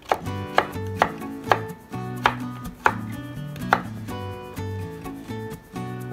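Kitchen knife chopping a peeled carrot on a wooden cutting board: about seven sharp, unevenly spaced knocks of the blade through the carrot into the board in the first four seconds, then lighter cuts.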